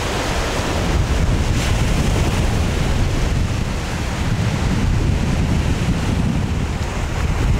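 Sea surf breaking and washing up on the beach, with strong wind buffeting the microphone.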